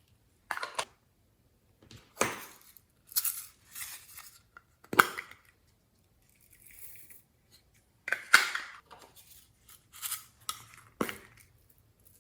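Glossy slime being squeezed and stretched by hand: a series of separate sticky crackles and pops, each lasting under a second, with short quiet gaps between them.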